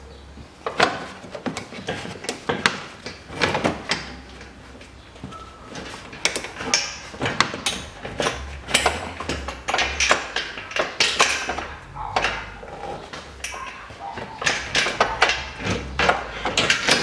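Irregular clicks, knocks and scrapes of a metal engine guard and its mounting bolts being handled and fitted under a car.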